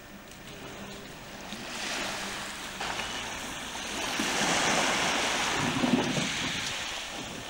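Small waves washing onto a pebble beach, with wind rumbling on the microphone. The wash swells louder through the middle and eases off near the end.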